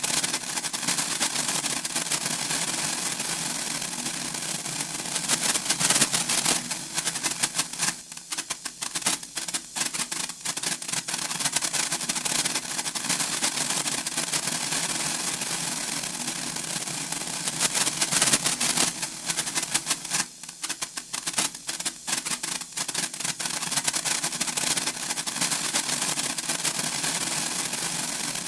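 Senko hanabi (Japanese incense-stick sparklers) crackling as their sparks spit rapidly. The crackle swells into dense flurries about six seconds in and again around eighteen seconds, and each time thins out to scattered pops.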